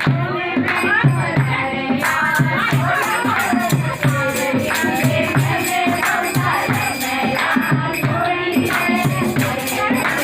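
Music: a song with a melodic voice line over a steady rhythmic beat.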